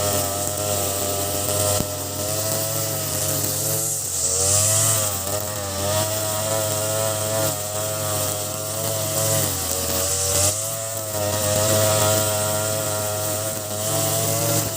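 Ogawa BG330 33cc two-stroke brush cutter, fitted with a 43cc carburettor, running at high revs while cutting grass. Its pitch wavers and sags briefly twice, about four seconds in and again after ten seconds, as the line meets heavier grass.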